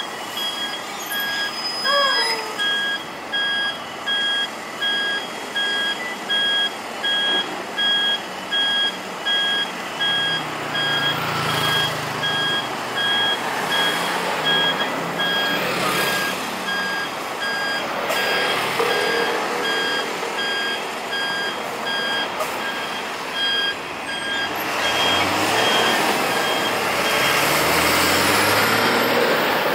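City bus at a stop sounding a repeating electronic warning beep, about one beep a second, over traffic noise. Near the end the beeping stops and passing vehicles' engines and tyres grow louder.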